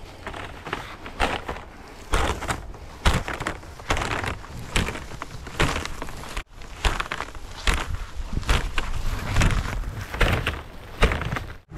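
Irregular crunching and knocking of footsteps on loose dirt and grass, with the rustle and rub of a plastic-wrapped coil of PEX pipe being carried and unrolled. There is a brief break about six and a half seconds in.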